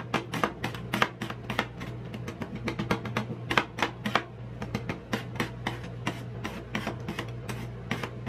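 Two metal spatulas chopping and tapping on the steel cold plate of a rolled-ice-cream machine, a fast, irregular run of sharp clacks, several a second, over a steady low hum.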